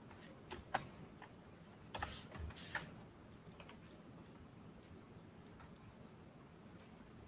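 Faint computer keyboard keystrokes and mouse clicks: a few clicks close together in the first three seconds, then single, lighter clicks spaced up to a second apart.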